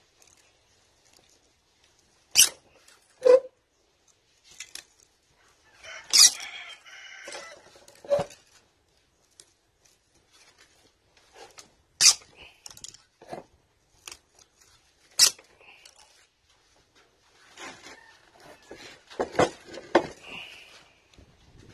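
Irregular sharp clicks and clanks, about a dozen, of pliers and cutters working at a pool pump motor's stator, cutting and pulling out the old copper winding before rewinding.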